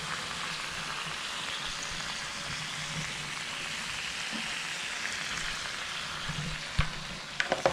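Lobsters sizzling on the hot ridged plate of a George Foreman electric grill: a steady frying hiss, with a few sharp knocks near the end.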